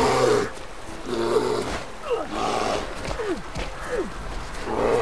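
A bear growling and roaring in several rough bursts, with a few short falling cries between them, over a steady hiss.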